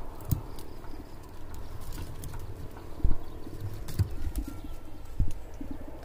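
Dry branches and twigs rustling and snapping as someone pushes through dense brush, with scattered sharp cracks and several dull thumps, the loudest about three seconds in.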